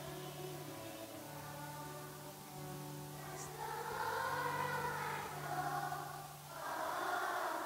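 A choir singing over a steady low held accompaniment note, growing louder about four seconds in and again near the end.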